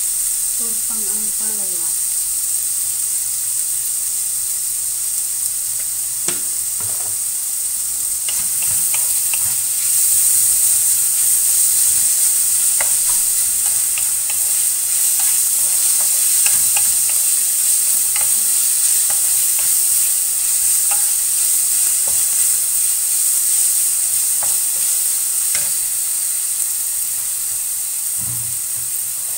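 Chopped vegetables sizzling in oil in a hot wok with a steady hiss, while a wooden spatula stirs them and taps and scrapes the pan in short ticks. The sizzle grows louder about ten seconds in.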